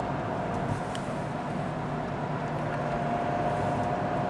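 Steady engine and tyre noise of a car driving slowly in traffic, heard from inside the cabin: an even low hum with a faint steady whine.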